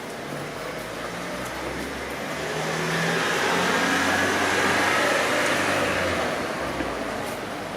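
A car passing by in the street, its engine hum and tyre noise swelling to a peak about five seconds in and then fading away.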